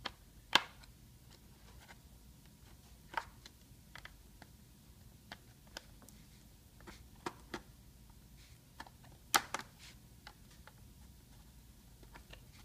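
Plastic snap clips of an HP Pavilion laptop's screen bezel popping loose as a credit card pries the bezel away from the lid: a string of sharp clicks at irregular intervals, the loudest about nine seconds in.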